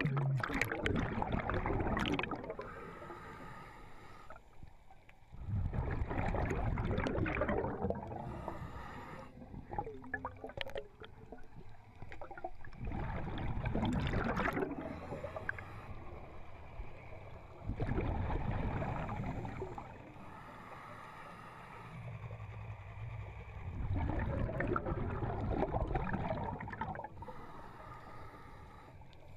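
Scuba diver breathing through a regulator underwater, close to the microphone. A bubbling rush of exhaled air comes every five to six seconds, with a quieter hiss of the regulator on each inhale between them.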